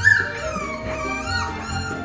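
Cavalier King Charles Spaniel puppies whimpering, with short high-pitched squeaks repeating over background music; a louder falling whine comes right at the start.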